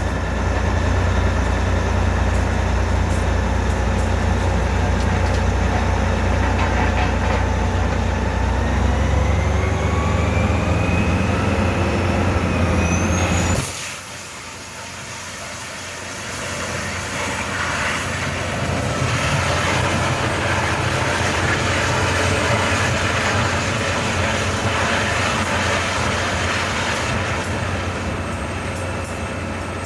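Truck-mounted well-drilling rig running with a heavy, steady engine drone, with a rising whine building through the first half. The sound cuts off suddenly about halfway through, and a rougher, hissier machine noise builds back up after it.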